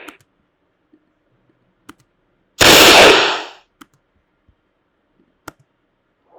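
A whoosh sound effect: a sudden swoosh of noise that starts sharply about two and a half seconds in and fades away over about a second. It is followed by a couple of faint clicks.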